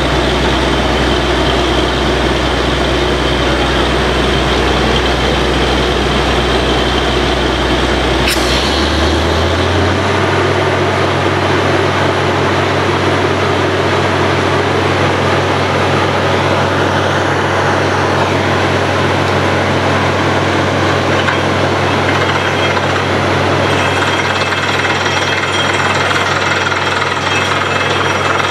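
Truck-mounted borewell drilling rig running hard, its engine and air-driven drilling hammer making a loud, steady pounding clatter. About eight seconds in there is a sharp click, and the engine's low drone steps up in pitch and holds there.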